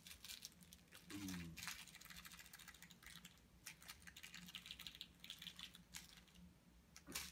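Near silence with faint scattered clicks and rustles, and a short low voice-like sound, falling in pitch, about a second in.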